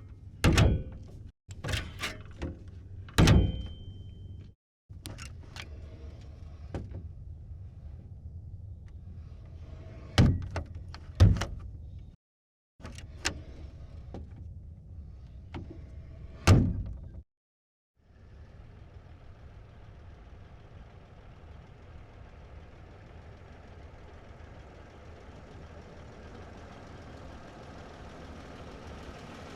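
Doors of a 1927 sedan opened and shut: latch clicks and solid slams, first a back door twice, then a front door twice. About eighteen seconds in, the sedan's engine is heard idling steadily, growing slowly louder toward the end.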